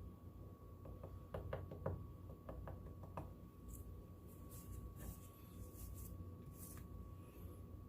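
A quick cluster of light knocks and taps for about two seconds, then several short hissing puffs of air, typical of paint being blown across the corner of an acrylic pour.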